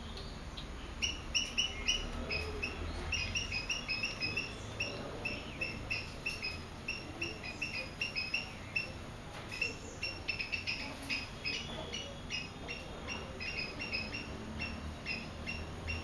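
Swallow calling: a rapid series of short, high chirps, several a second, starting about a second in and going on with only brief pauses, over a low background rumble.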